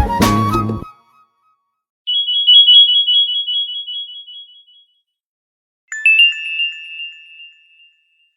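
Nokia 3500 classic ringtones played back one after another. A melodic ringtone ends under a second in. A high, rapidly pulsing electronic chime sounds from about two seconds and fades. A second bright electronic chime strikes near six seconds and fades away.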